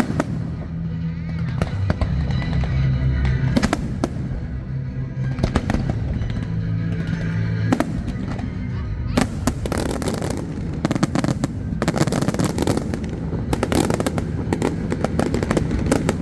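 Fireworks going off over a show's loudspeaker music: scattered sharp bangs over a steady bass line at first. From about nine seconds in, a dense run of crackling bursts.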